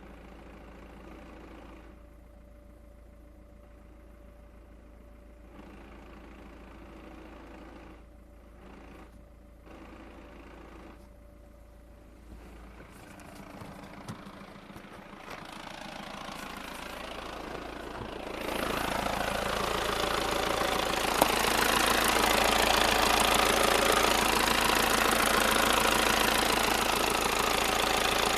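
Volkswagen Passat B6's 2.0 TDI (BMP) turbodiesel engine idling with a knock from its dual-mass flywheel, the sign of a worn flywheel. The engine sound grows much louder about two-thirds of the way in.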